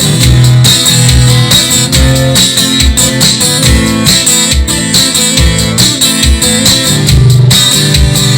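Instrumental music led by guitar, with a steady low beat.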